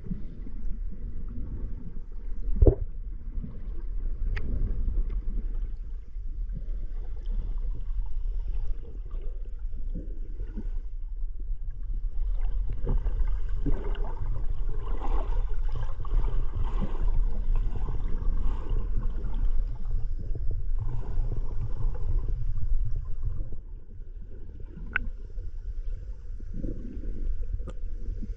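Muffled underwater sound heard through a camera's waterproof housing: a steady low rumble of moving water with gurgling, louder in the middle, and a few sharp clicks or knocks.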